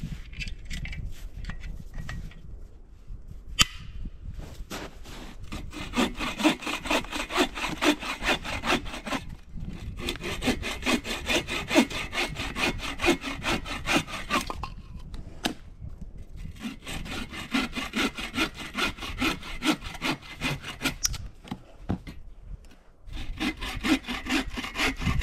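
Hand saw cutting through wood in rapid, even back-and-forth strokes, stopping briefly twice.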